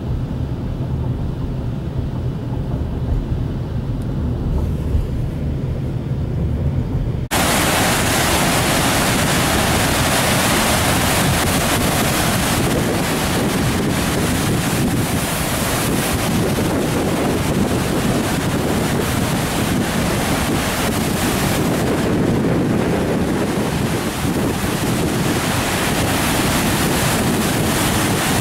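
Water rushing and churning below Gavins Point Dam during a high flood release on the Missouri River, heard as a steady, loud rush mixed with wind buffeting the microphone. About seven seconds in, the sound changes abruptly from a duller wind rumble to the full rush of the water.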